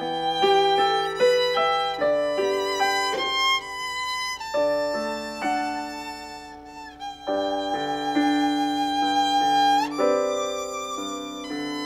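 Violin playing a slow, lyrical melody of held notes, accompanied by a digital piano. A long held violin note about two-thirds of the way through ends in an upward slide.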